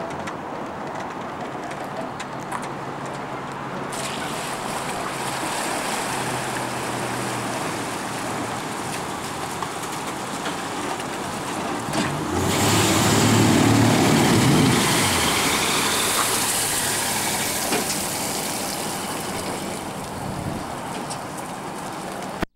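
Engines running as a ski boat is hauled out of the water on its trailer: a steady hum, swelling to a loud rush with a deep rumble about halfway through, then easing off.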